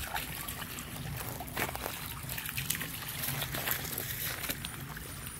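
A dog wading through shallow creek water, its paws splashing and sloshing in irregular steps.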